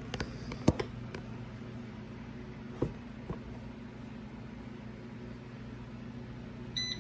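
A few knocks and clunks of the air fryer basket being handled and pushed into the unit, the loudest about a second in, then a short electronic beep from the air fryer's control panel near the end.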